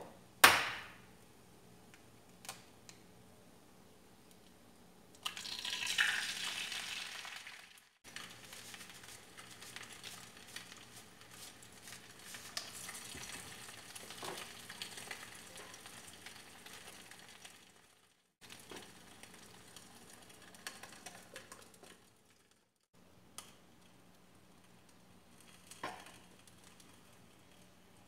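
An egg frying in a hole cut in a slice of whole-wheat bread in a nonstick pan: the sizzling flares up loudly about five seconds in, then settles to a steady, quieter sizzle with small crackles.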